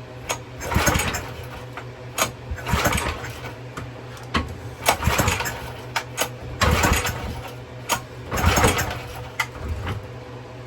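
Recoil starter of a 3.75 HP Briggs & Stratton small engine pulled about five times, cranking the engine over without it firing, with a compression gauge in the spark plug hole for a compression test.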